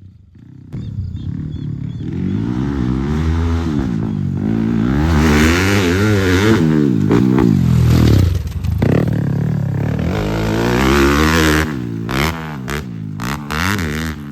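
Yamaha WR dirt bike engine revving up and down repeatedly, starting about a second in, with short quick revs near the end.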